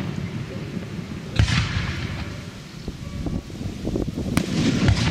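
Aerial firework shells bursting: a heavy bang about a second and a half in and a sharp crack near the end, each followed by a short hissing trail, with a few smaller pops in between.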